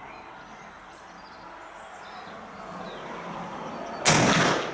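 A single shot from a French M1866 Chassepot 11 mm needle rifle firing a combustible paper cartridge, about four seconds in, loud and sharp and fading out over about half a second. Steady background noise comes before it.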